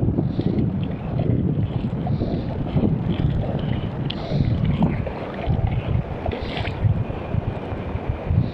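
Wind buffeting the microphone: a gusty low rumble that rises and falls unevenly, with a few faint higher sounds over it.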